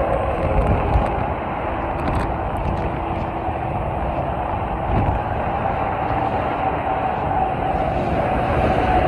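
Steady traffic noise from a busy multi-lane highway: the continuous rush of tyres and engines of passing cars and trucks, with a faint steady whine on top.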